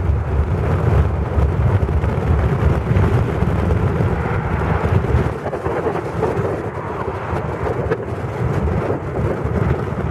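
Bugatti Type 35 driving along, its engine running with a steady low rumble mixed with wind buffeting across the open cockpit; the rumble eases a little about halfway through.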